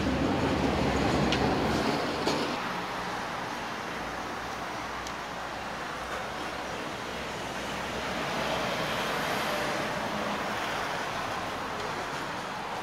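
Street traffic noise: a steady hum of vehicle engines and road noise, louder for the first two seconds or so.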